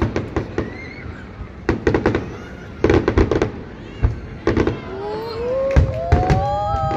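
Fireworks bursting overhead: clusters of sharp bangs and crackles about every second or so. About five seconds in, a long pitched tone rises and then holds under the bangs.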